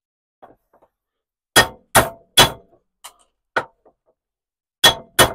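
A heavy hammer striking the wheel studs of an MG Midget front hub held across open vise jaws, knocking the studs out: sharp metal-on-metal clangs, each with a short ring. Three quick blows come about a second and a half in, then a lighter one, then two more near the end.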